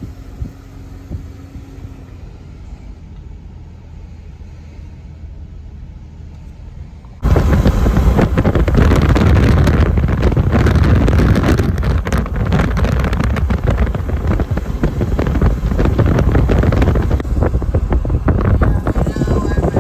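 Car driving: a low, fairly quiet rumble of engine and road at first, then about seven seconds in, suddenly loud wind buffeting the microphone over road noise from driving at speed.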